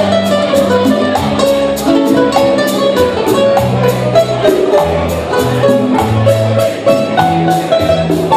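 A Latin guitar trio playing a bolero live through a PA system: a picked lead-guitar melody over strummed guitar and bass, without singing, with a steady ticking percussion beat about three times a second.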